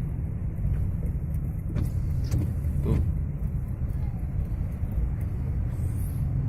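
Car running with a steady low rumble of engine and road noise, with a few faint clicks around two to three seconds in.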